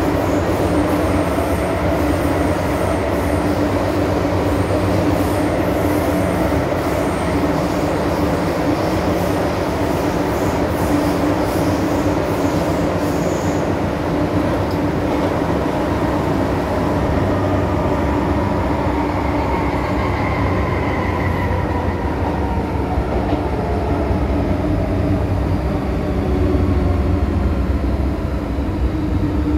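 Inside an MTR M-Train electric metro carriage under way: steady wheel-and-rail running noise with a constant hum. From about two-thirds of the way in, the traction motors' whine falls in pitch as the train slows.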